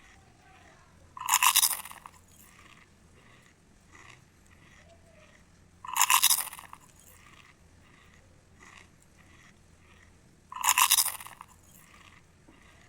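Close-miked crunching as a person chews crispy food: three loud crunches about four to five seconds apart, with soft, regular chewing in between.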